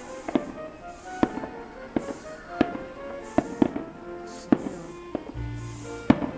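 Fireworks shells bursting, about eight sharp bangs at irregular intervals, over music with a melody.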